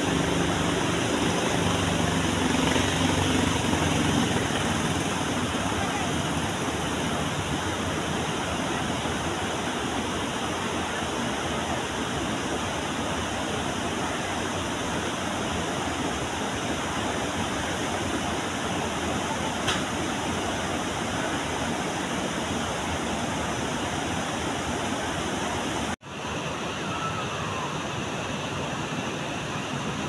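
Steady rushing of a large river's flowing water, an even continuous roar. A low motor hum sits under it for the first few seconds and fades out; about 26 seconds in the sound drops out for an instant and the rushing resumes.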